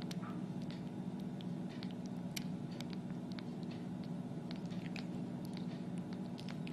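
Newborn kitten suckling as it feeds: quick, irregular small wet clicks and smacks, over a steady low hum.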